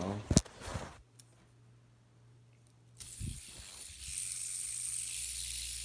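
A sharp click near the start, then a fidget spinner flicked into spinning about halfway through, its bearing giving a steady, high-pitched hissing whir for several seconds.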